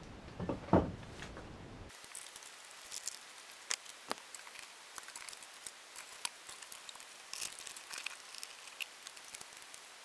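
Scattered light clicks, taps and rustles of power cables being handled and plugged into laptops on a plywood desk.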